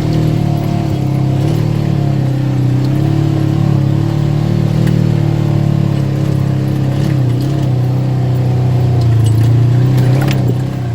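ATV engine running under way, a steady drone whose pitch rises and falls slightly with the throttle.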